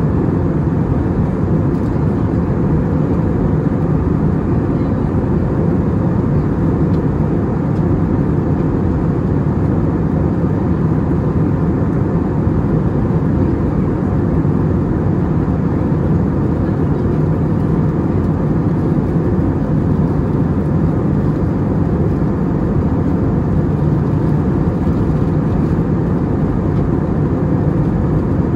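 Steady cabin noise inside an Airbus A320neo in flight: the even rush of airflow and engine noise, deep and constant, with a faint steady hum on top.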